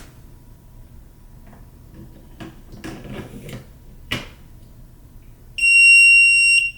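Clicks and rustles of the AA battery pack being pushed back into a Kwikset smart lock, with one sharp click. Near the end the lock gives a long, steady, high-pitched beep, which signals that the batteries have been reinserted properly.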